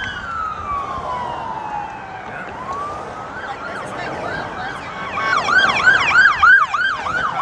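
Police car siren: a slow wail falling in pitch, rising again, then switching to a fast yelp of about three cycles a second that grows louder near the end.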